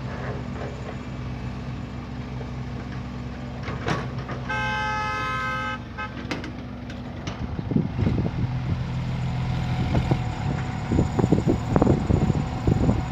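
Heavy diesel engine running steadily as a vehicle horn sounds once for over a second, about halfway through. In the second half, loud irregular rumbling bursts come in over the engine.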